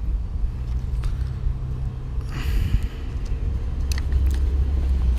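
A steady low rumble, with a brief rustle about halfway through and a couple of sharp clicks a little later.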